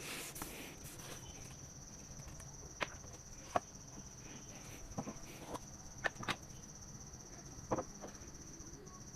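Crickets making a steady high-pitched chirring in the background, with a handful of short, sharp clicks and taps from about three seconds in.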